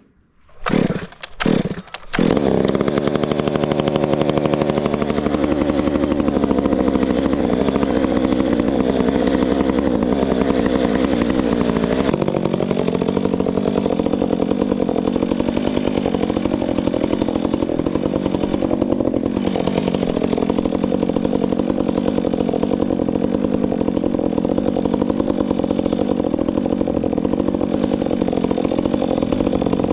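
Two-stroke gas chainsaw: a few short bursts, then it starts about two seconds in and runs steadily at high speed, its pitch wavering up and down.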